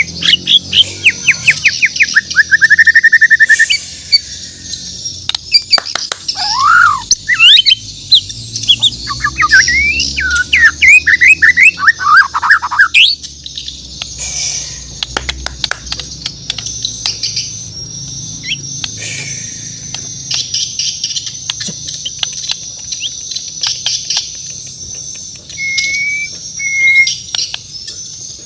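White-rumped shama (murai batu, Bornean form) singing loud, varied whistled phrases: a fast run of repeated notes ending in a trill, then sweeping whistles rising and falling, with the song growing quieter and sparser in the second half. A steady high-pitched chirping and scattered sharp clicks run underneath.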